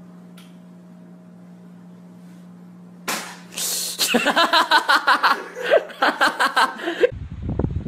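A faint steady hum, then about three seconds in a sudden loud noisy burst, followed by several seconds of hearty, rhythmic laughter that breaks off abruptly near the end.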